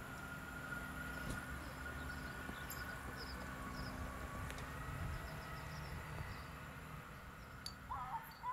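Outdoor ambience: small birds chirping repeatedly over a steady low rumble, with a couple of louder bird calls near the end.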